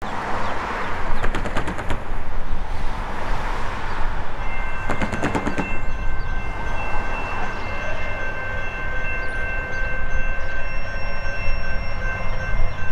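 Distant diesel locomotive air horn sounding one long, steady chord that begins about four seconds in, as the Norfolk Southern SD70ACC leading the train approaches. Two short bursts of rapid clicking come early on, over a steady low rumble.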